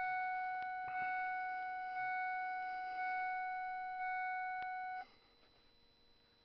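Car's dashboard warning chime, a steady electronic tone re-sounded about once a second, stopping suddenly about five seconds in.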